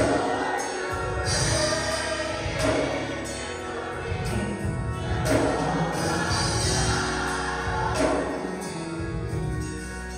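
Background music: a gospel song with choir-style singing over a steady beat.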